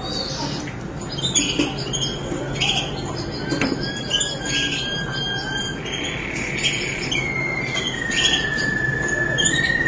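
Malinois Waterslager canary singing: short repeated song phrases mixed with long held whistled notes, the longest starting about seven seconds in and held steadily to the end.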